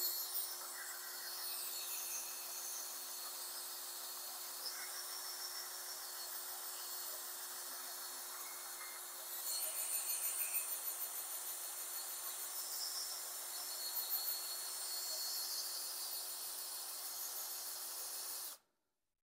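Cordless DeWalt drill running on slow speed, turning the oil pump of a Ford 200 cu in inline-six through a priming shaft in the distributor hole to prime the oiling system: a steady whir with rubbing, louder for a couple of seconds about halfway, cutting off suddenly near the end.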